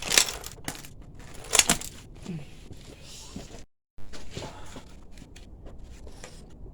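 Metal clicks and scraping of hand tools working on a motorcycle drive chain's split link, with two sharp clacks in the first two seconds and lighter ticks after.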